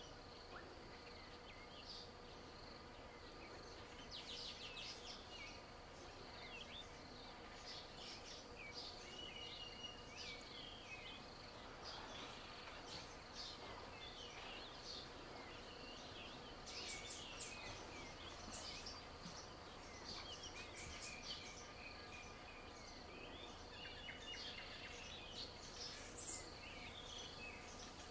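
Faint outdoor daytime chorus: birds calling with many short chirps and whistles over a steady, high-pitched insect drone.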